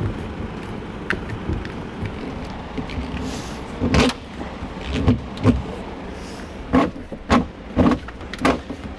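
Corrugated plastic wire loom and wiring being worked through a grommet in a camper's front wall and pulled through from underneath: a string of short scrapes and knocks, starting about four seconds in and coming roughly every half second to second, over steady room noise.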